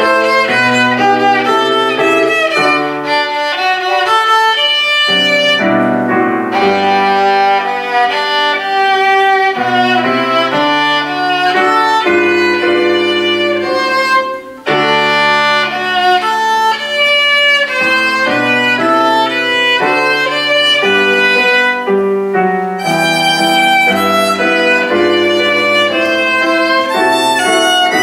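Violin playing a quick-moving melody over a lower accompaniment, with a brief break in the sound about halfway through.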